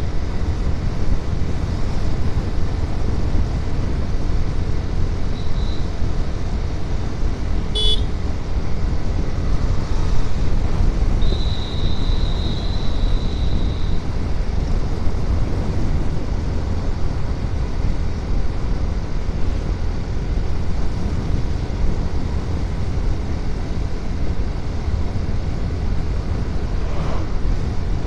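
Motorcycle riding at speed: steady wind rumble on the microphone with road and engine noise. Two short horn toots sound, one right at the start and another about eight seconds in, and a thin high tone runs for a few seconds around twelve seconds in.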